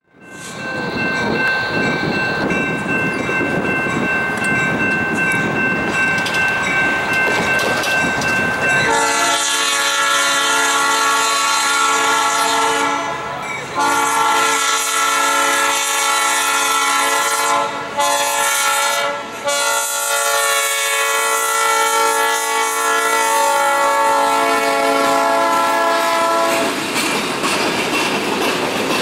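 A freight train's diesel locomotive approaches, then sounds its multi-chime air horn in the grade-crossing pattern: two long blasts, a short one, then a final long blast. After the horn stops, the freight cars roll past with wheels clicking over the rail joints.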